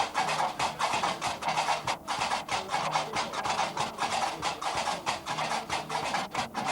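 Gnawa music: qraqeb, the iron castanets, clacking in a fast steady rhythm of about five or six strikes a second.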